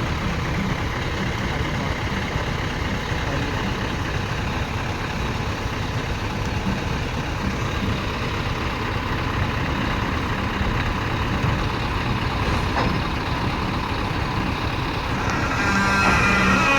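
Heavy vehicle running steadily with a continuous low rumble. About fifteen seconds in, a louder pitched sound with several tones comes in.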